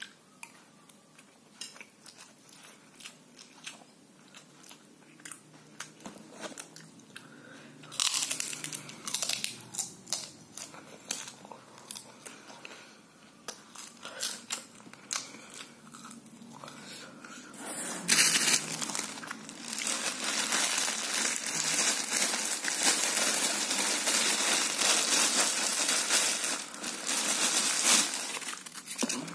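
Close-up eating noises over a plate of fried instant noodles: scattered small clicks and crunches at first, then loud crinkly crunching and rustling that becomes nearly continuous about eighteen seconds in.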